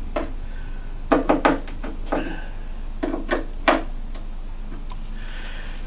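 Light knocks and taps of wood being handled as a speaker cabinet and its parts are worked on, about eight separate knocks in all, over a steady low hum.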